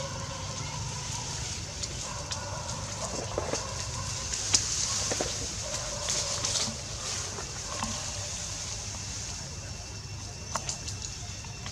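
Scattered short animal calls and drawn-out tones over a steady high hiss, with a few sharp clicks, the loudest about four and a half seconds in.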